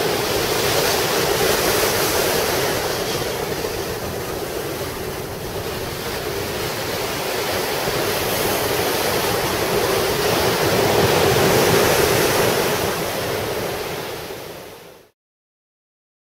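Ocean surf breaking and washing up a sand beach in a steady hiss that swells and eases with the waves, then fades out to silence near the end.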